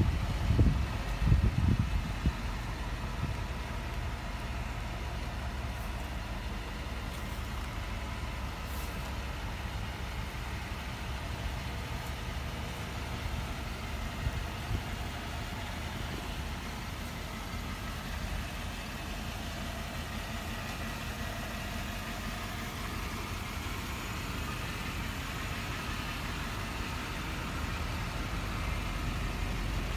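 1995 Chevrolet Impala SS's 5.7-litre LT1 V8 idling steadily, a low even rumble. Gusts of wind hit the microphone in the first couple of seconds.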